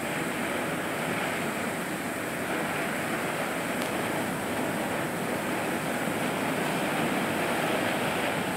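Peacock in Season ground fountain firework burning, its jets of sparks giving a steady hissing rush.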